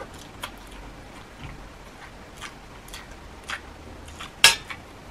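Scattered wet mouth clicks and smacks of someone chewing and licking their fingers while eating shrimp by hand, with one sharper, louder click near the end.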